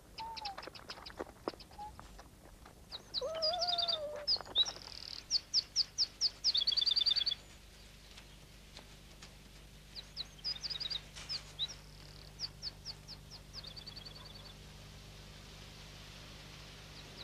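Wild songbirds singing: runs of quick high chirps and short trills, loudest from about three to seven seconds in and returning more softly later.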